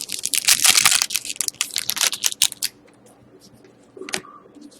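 A trading-card pack's wrapper being torn open and crinkled in the hands: a dense run of rustling and crackling for the first two and a half seconds or so. After that come only a few faint handling clicks.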